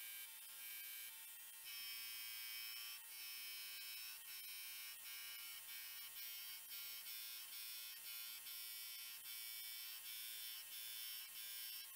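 Belt grinder running a 36-grit belt, grinding the profile of a Damascus steel dagger blank. A fairly quiet, steady high whine that strengthens about two seconds in and dips briefly every half second or so as the blade is worked against the belt.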